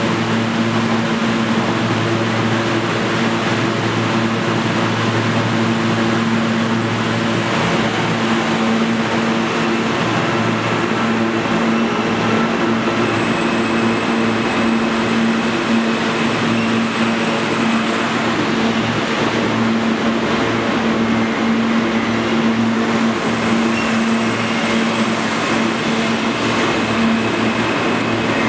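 R160 subway train standing at an underground platform, its ventilation and electrical equipment giving a steady hum with a strong low drone and a few fainter tones above it. Near the end the train starts to pull out.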